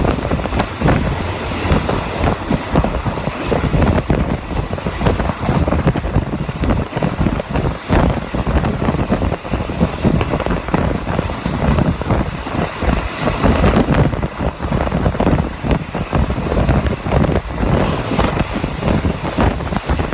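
Wind buffeting a microphone held out of the open window of a moving passenger train, over the steady rumble and clatter of the carriage's wheels on the rails.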